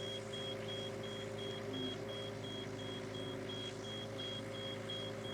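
Hitachi EX55UR mini excavator's diesel engine running steadily, with a high-pitched electronic alarm beeping rapidly, about three beeps a second.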